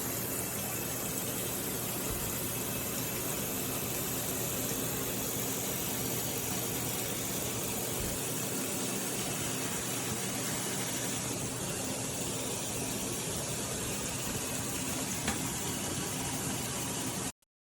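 Steady, even hiss-like background noise with a faint low hum, cutting off suddenly near the end.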